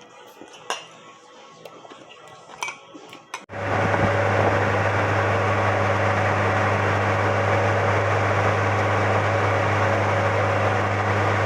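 A few light clinks of cutlery against dishes. About three and a half seconds in, it cuts abruptly to a loud, steady rushing noise with a constant low hum under it.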